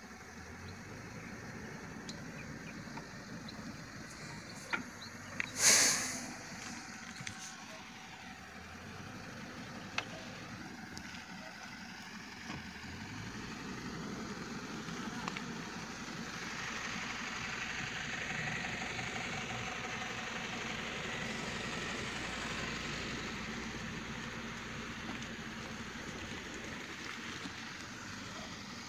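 Heavy diesel engines of a truck and a mobile crane running steadily. There is a brief loud hiss about six seconds in, and the engine sound grows louder and fuller from about halfway through.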